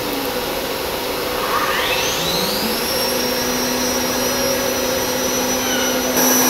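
CNC router spindle spinning up to 14,000 rpm for its bearing warm-up. A rising whine climbs from about a second and a half in, then settles into a steady high whine, over a constant rushing noise.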